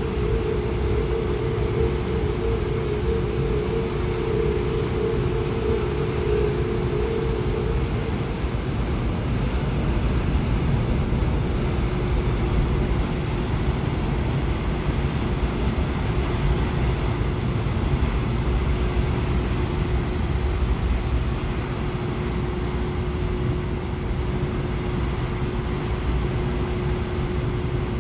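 Steady low rumble of the ferry M/V Puyallup's engines and propellers under way as it pulls out of the slip, with a broad rushing noise above it. A steady hum runs through it and drops a little in pitch about ten seconds in.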